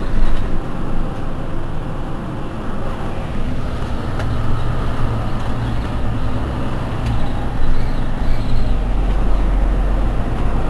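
Mercedes-Benz Citaro C2 city bus running with a steady low drone, its pitch dropping lower near the end, and a couple of faint clicks.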